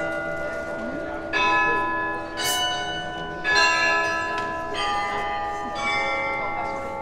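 The bells of the Graz glockenspiel playing a slow melody, one note struck about every second, each ringing on under the next.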